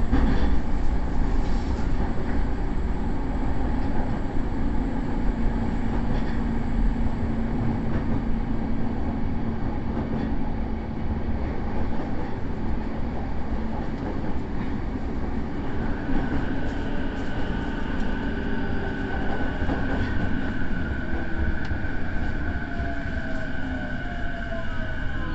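Electric train car MoHa E233-7204 running, with its traction motor and gears making an abnormal drone that sounds like an old nose-suspended (tsurikake) motor. A higher steady tone comes in a little past the middle, and falling tones near the end as the train slows.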